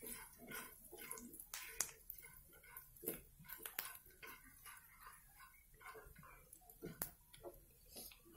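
Faint, scattered knocks and scrapes of a wooden spatula stirring fried onions, chillies and spices in a black kadhai.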